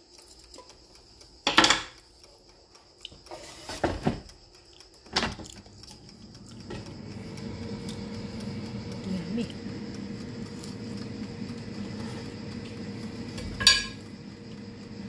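Necchi air fryer: a few sharp knocks and clatters as the basket is handled and pushed in, then the fryer's fan starts and runs with a steady whir. Near the end comes one loud, sharp, ringing metallic click.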